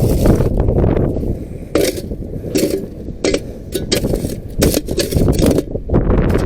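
Steel shovel scraping and knocking through dry, caked mud and dirt in a series of short, irregular strokes, over heavy wind rumble on the microphone.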